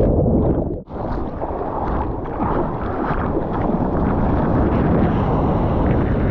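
Loud, rough wind buffeting on the microphone over rushing water, with a brief sudden drop out a little under a second in.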